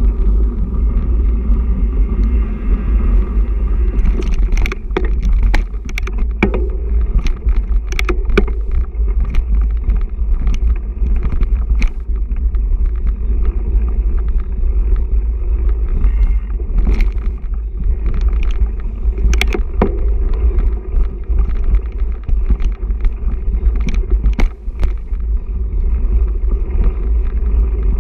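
Mountain bike rolling fast over a gravel and dirt trail, heard from a camera on the bike or rider: a steady low rumble of wind and tyres, broken by frequent sharp knocks and rattles as the bike hits bumps.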